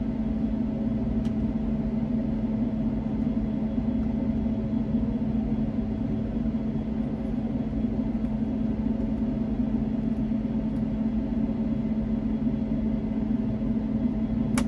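A steady machine hum, an unchanging low drone with several held tones, with a few faint clicks over it.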